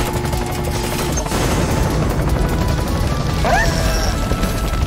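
Cartoon sound effect of a helicopter's rotor chopping fast, mixed with the rushing of jet reactors, over background music. The noise swells about a second in, and a short rising squeal comes near the end.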